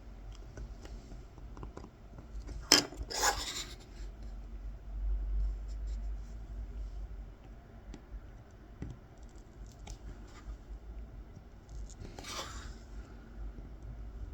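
A small kolrosing knife scoring fine cut lines into a wooden coffee scoop, heard as faint short scratches. There is a sharp click and a brief louder rasp about three seconds in, and another rasp near the end.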